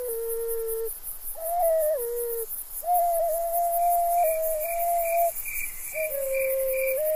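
Background music: a slow flute melody of long held notes that slide down at their ends, with short breaks between phrases. Under it runs a fast, high, even chirping like crickets, and from about halfway a soft high tone pulses about twice a second.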